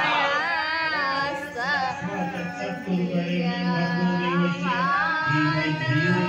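A group of women singing a devotional song together at a puja, with a steady held low note underneath the melody.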